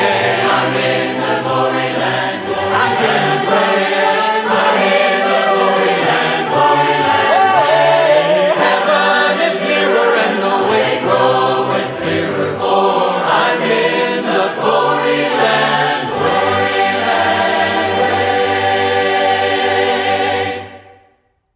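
A cappella choir singing a hymn in harmony, holding sustained chords, fading out quickly near the end.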